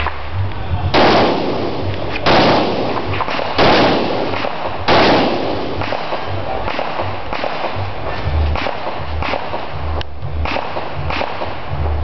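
Four rifle shots fired about a second and a quarter apart, each with a short ringing tail, followed by fainter scattered sharp cracks.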